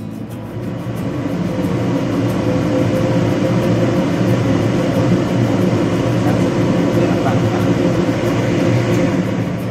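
Steady rushing noise from a wok steamer on a gas stove, water boiling hard under the rack with the burner lit, building up over the first couple of seconds with a steady hum underneath.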